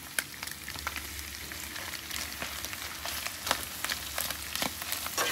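Crumbled pork sausage sizzling and crackling in its rendered fat in a cast iron skillet as flour is stirred in to start a roux for gravy. A metal spatula scrapes and clicks against the pan now and then.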